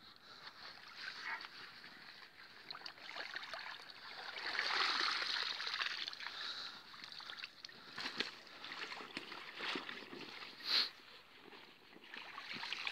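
Water splashing and sloshing, swelling for a couple of seconds near the middle, as a hooked fish is played close in. There are a few sharp clicks and knocks in the second half.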